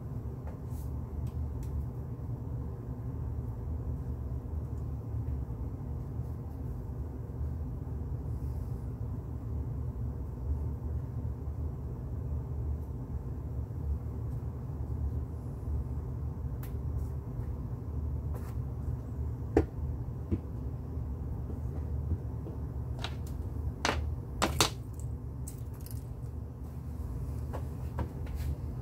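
Steady low room hum, with a few light clicks and knocks from handling a paintbrush and paint jars, the loudest about two-thirds of the way through.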